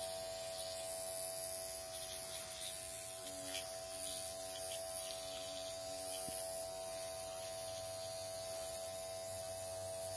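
Dr. Pen M8 electric microneedling pen buzzing steadily as its needle cartridge is worked over the skin of the face, a constant even-pitched motor hum.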